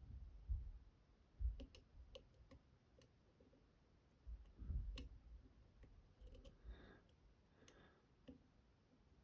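Faint, scattered clicks of lock picks working the pins of a two-row, 13-pin tier key lock, with a few soft low bumps from handling.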